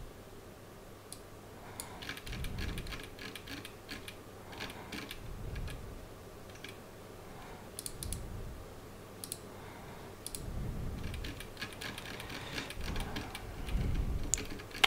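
Computer keyboard keystrokes and mouse clicks in short, irregular bursts, with a few soft low thumps between them.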